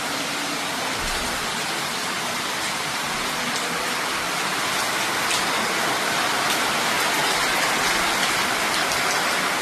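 Steady rainfall, an even dense hiss with a few sharper drops standing out, growing slightly louder toward the end.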